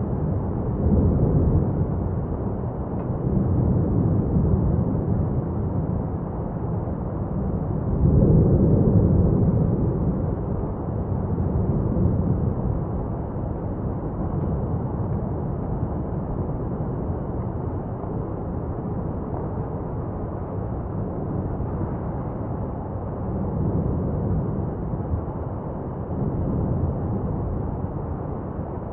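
Lava fountain erupting from Mount Etna's South-East Crater during a paroxysm: a continuous deep rumble that surges louder every few seconds, strongest about eight seconds in.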